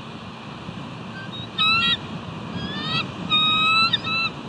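Bald eagle calling: a string of high, piping call notes in several bursts, a short one about a second and a half in, a few rising notes around three seconds, then a longer call and a last short note near the end.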